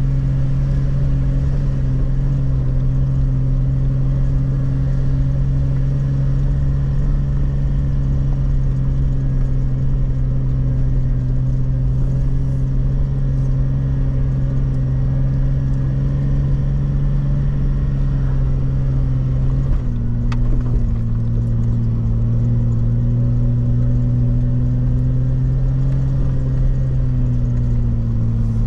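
Jeep LJ's 4.0-litre straight-six engine droning steadily while driving, heard from inside the cab, with rumble underneath. About twenty seconds in, the engine note drops slightly in pitch.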